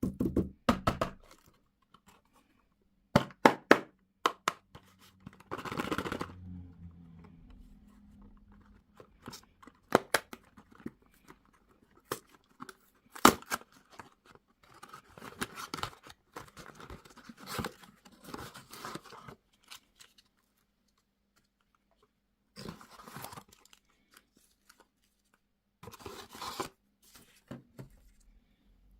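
Sweet and snack packaging being torn open and crinkled close to the microphone, in separate bursts with sharp clicks and snaps between them.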